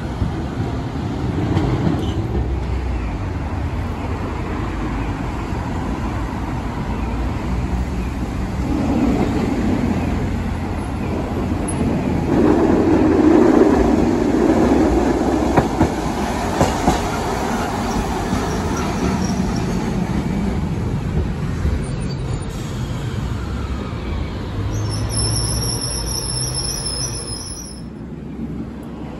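Kumamoto City Tram 8500-series streetcars running on street track: the growl of nose-suspended traction motors and gears with wheels on the rails, loudest about halfway through as a car passes close. Near the end comes a thin, high wheel squeal.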